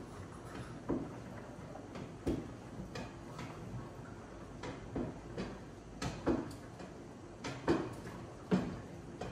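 Light, irregular clinks and knocks of a kitchen utensil against a stainless-steel cooking pot on the stove, about one or two strikes a second.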